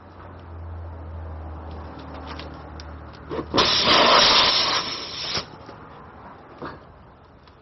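A loud hiss lasting about two seconds, starting midway through, over a low steady hum.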